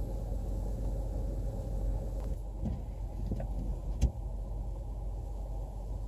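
Steady low rumble of blizzard wind heard from inside a car, with one sharp knock about four seconds in.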